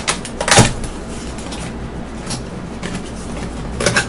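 Camcorder box and its packaging being opened and handled: scattered rustles and knocks, the loudest about half a second in and another cluster near the end.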